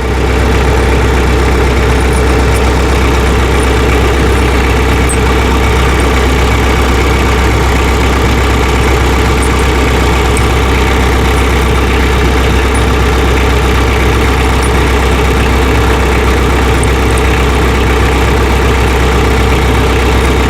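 Tractor engine idling steadily, an even low drone that holds the same pitch throughout.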